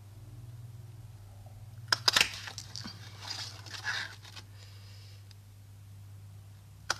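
A handheld shaped paper punch snapping down through cardstock: a sharp cluster of clicks about two seconds in, followed by the rustle and scrape of the card sheet and punch being slid into place for the next cut. A low steady hum runs underneath.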